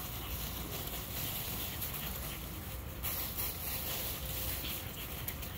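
Dry fallen leaves rustling and crackling as puppies scamper through them chasing a flirt-pole lure, with a person's footsteps in the leaves, a continuous patter of small crunches.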